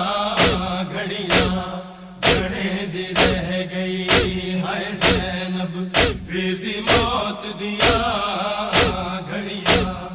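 Male noha party chanting in unison with matam: hands striking chests together at a steady pace of about one beat a second. A steady low hum runs under the voices.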